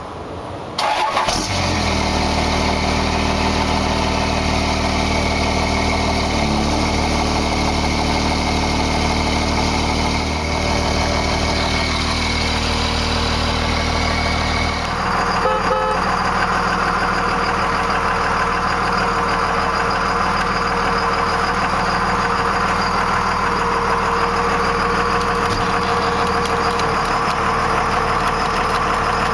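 Cummins 5.9-litre inline-six turbo diesel in a 1998 Dodge Ram 2500, idling steadily. About halfway through, the low drone drops away and a higher clatter comes to the fore.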